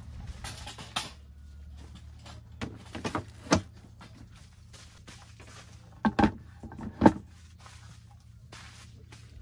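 Scattered short knocks and thuds, about half a dozen, the loudest about three and a half and six seconds in, over a low steady hum.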